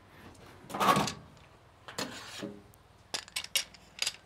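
Bar clamps and screw F-clamps being undone and lifted off a stainless steel benchtop: a loud clatter about a second in, a click and a short scrape around two seconds, then a quick run of sharp clicks near the end.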